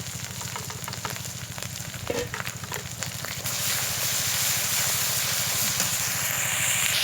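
Spice paste (masala) sizzling in hot oil in a pan while a spoon stirs and scrapes it, with sharp clicks of the spoon on the pan. About three and a half seconds in, the sizzling grows louder and steadier as the masala fries.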